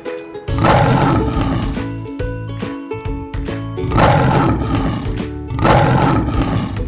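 Lion roaring three times, the first about half a second in and the others around four and nearly six seconds in, over cheerful plucked-string background music.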